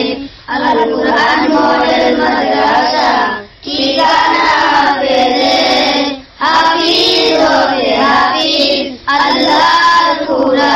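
A Bengali Islamic gojol being sung, in phrases of about three seconds with short breaks between them.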